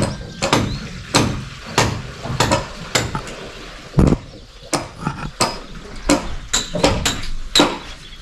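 Hammer driving nails into roofing timbers: a steady run of about a dozen blows, some with a short metallic ring.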